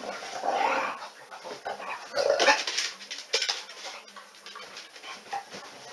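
Dogs playing, with two short bursts of dog vocalizing, the first under a second in and the second about two seconds in, then softer scuffling and a few light taps.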